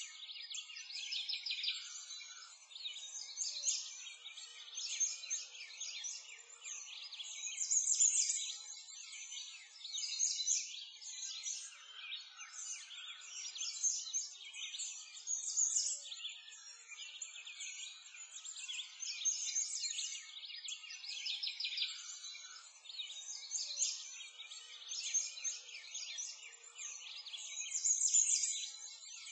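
A chorus of small songbirds chirping and trilling continuously, in high, quick phrases that swell and fade every few seconds.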